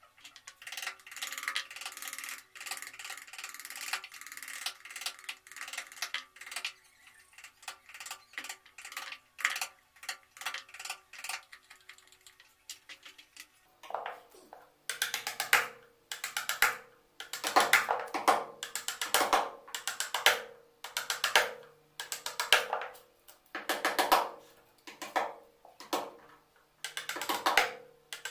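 Small metal-headed hammer striking a wood-carving chisel to cut a design into a wooden panel. The taps are light and quick at first, then about halfway through they turn to harder blows in short groups of a few strikes, about one group a second.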